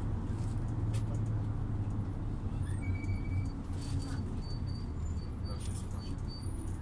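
Volvo Carrus City bus running, a steady low hum with road-and-body noise at an even level.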